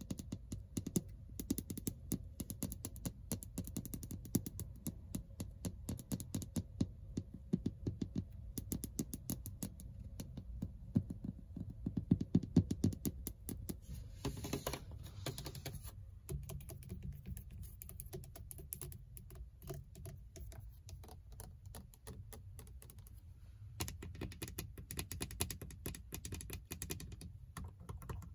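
Long fingernails tapping rapidly on the textured plastic dashboard of a Ford Mustang, a quick train of light clicks, with a couple of seconds of nail scratching about halfway. Near the end the tapping moves onto the door panel and its window switches.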